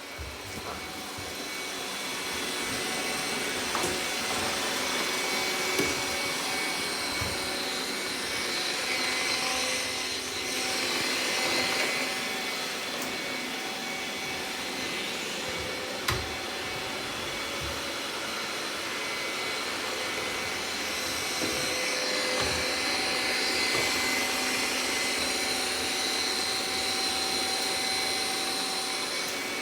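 Robot vacuum cleaner running, its suction motor giving a steady whirring noise with a high whine, growing louder over the first few seconds, with a few sharp clicks.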